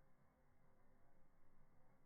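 Near silence: a faint, even low noise with no distinct crackles or pops.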